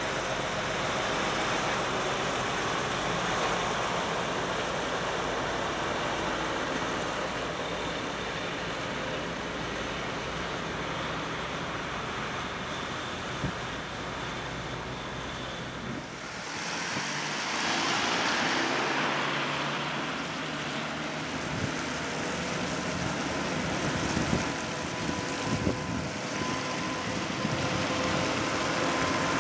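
Slow-moving road convoy of heavy transport trucks and escort vehicles passing on a wet road: engines running, with tyre hiss. About sixteen seconds in the low rumble falls away and a louder hiss swells, and later a steady engine whine comes in as another truck draws near.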